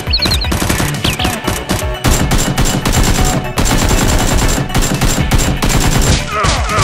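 Rapid automatic gunfire, a dubbed machine-gun sound effect rather than the Nerf blaster's own noise, over background music.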